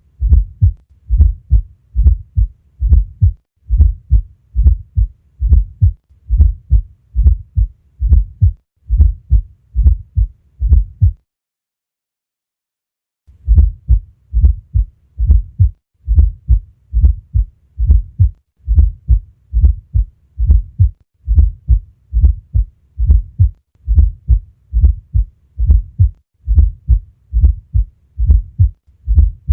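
Heartbeat recorded at the cardiac apex, a regular train of low thuds with a fourth heart sound (S4) just before each first heart sound. The beating stops for about two seconds near the middle, then resumes.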